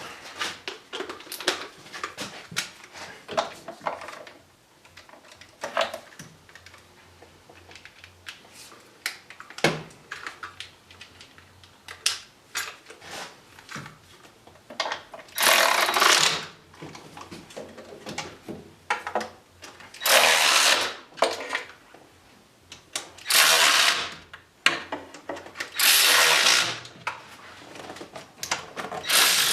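Hand tools and sockets clicking and knocking, then a power tool running in five short bursts of about a second each in the second half.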